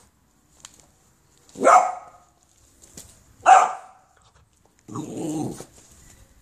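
Boxer puppy play-barking at a devil's coach-horse beetle: two short sharp barks about two seconds apart, then a longer, lower call about five seconds in.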